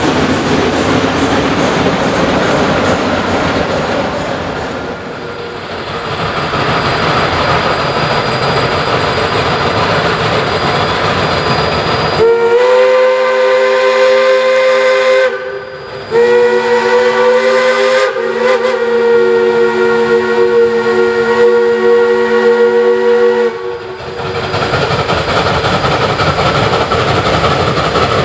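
Shay geared steam locomotive running past, with its rolling and hissing noise. About twelve seconds in, Shay No. 11 blows its steam whistle in two long blasts, the second about seven seconds long, and then the locomotive's running noise carries on.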